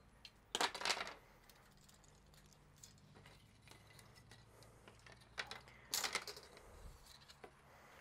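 Crinkling and rustling of a long strip of tape being handled, in two short bursts about half a second in and about six seconds in, with faint light ticks between.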